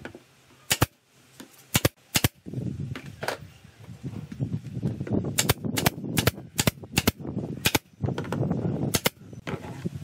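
A pneumatic nail gun firing about ten times at uneven intervals, each shot a sharp crack, driving nails through pallet-wood boards to join a bird-house panel. A low rough background noise runs under the shots from about two seconds in.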